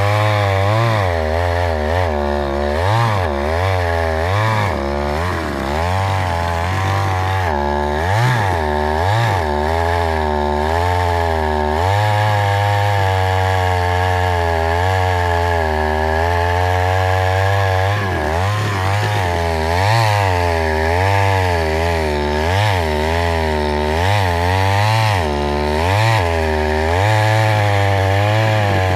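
Chainsaw engine running hard, its pitch rising and falling over and over as the engine speed changes.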